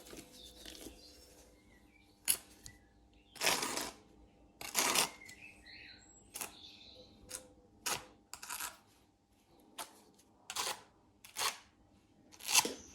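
Steel notched trowel working cement-based tile adhesive: about a dozen short scrapes and clicks at irregular intervals, a couple of them longer strokes of about half a second.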